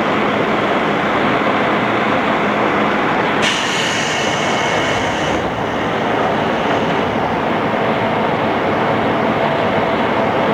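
JR East 211 series electric train running, heard inside the car: a steady loud rumble of wheels on rail. From about three and a half seconds in, a high-pitched wheel squeal rises over it for about two seconds.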